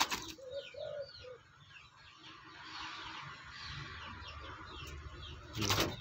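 Spotted dove cooing, three short low notes about a second in, over quick high chirps of small birds. A brief loud noise near the end.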